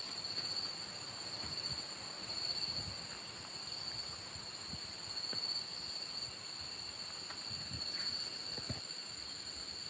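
Night insect chorus: a steady high-pitched buzz of crickets and other insects, with faint scattered rustles and soft knocks underneath.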